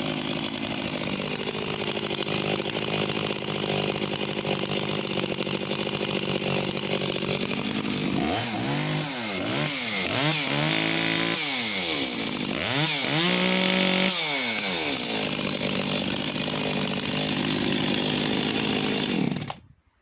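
Echo CS-6701 two-stroke chainsaw idling, then revved up and down several times through the middle before settling back to idle. The engine cuts off suddenly near the end.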